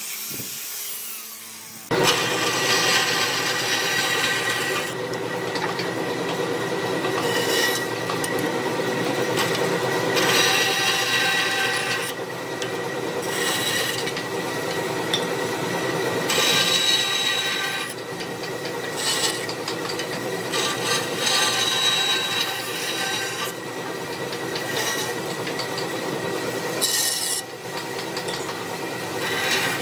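An angle grinder with a sanding disc sands a wooden chair part for about the first two seconds. Then a bandsaw runs steadily, cutting a wooden strip into short blocks, with a fresh cut through the wood every few seconds.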